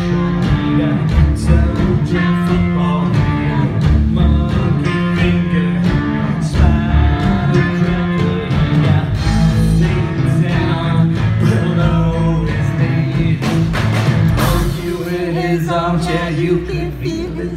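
Live rock band playing through an outdoor stage PA: electric guitar over drums and bass, with singing.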